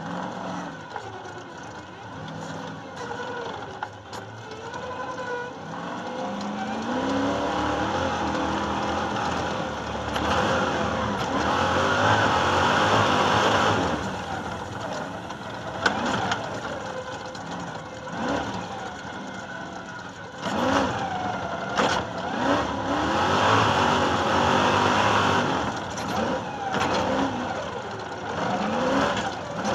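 Stadium Super Truck's V8 engine heard from the roof, repeatedly revving up and easing off as the truck accelerates and lifts through the stage, with wind and tyre noise underneath. It grows louder after the first several seconds as the truck picks up speed.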